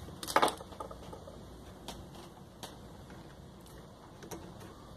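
Hand tools handled against the shower's plastic housing and circuit board: a brief clatter of clicks about a third of a second in, then a few light scattered clicks.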